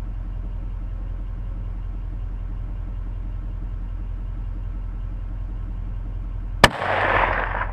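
A single rifle shot about six and a half seconds in, its report echoing away for about a second. A steady low rumble runs underneath.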